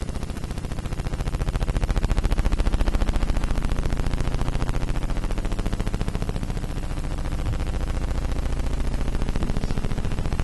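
Electronic soundtrack of the XYscope trailer heard through the hall's speakers: a rapid buzzing stream of clicks over a steady low drone, swelling louder about two seconds in.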